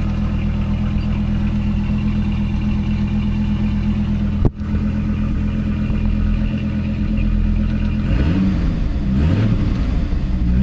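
2006 Dodge Viper's V10 engine idling steadily, just started after a no-crank, no-start fault was repaired. There is a brief break in the sound a little under halfway through, and near the end the throttle is blipped several times, the revs rising and falling.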